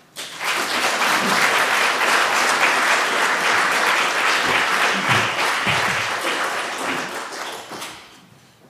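Audience applauding at the close of a talk: the clapping starts suddenly, holds steady for several seconds, then dies away near the end.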